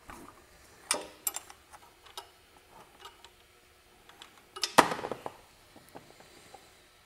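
Small metallic clicks and taps of a wrench working a motorcycle's oil drain plug loose, with a louder ringing metal clink just under five seconds in.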